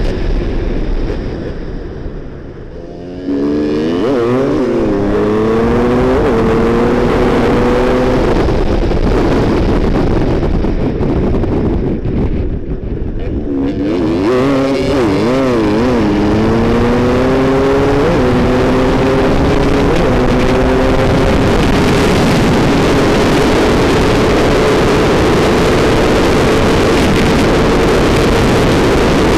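Enduro dirt bike engine at racing speed, heard from the rider's seat. Twice it accelerates hard up through the gears, its pitch climbing and dropping back at each shift. After that it holds a steady high rev.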